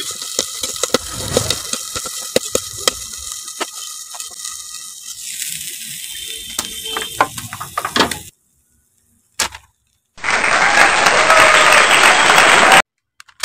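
Popcorn kernels popping in a pan: many quick sharp pops that thin out to a few scattered ones. After a sudden cut to silence, a loud steady hiss starts about ten seconds in and runs for a couple of seconds.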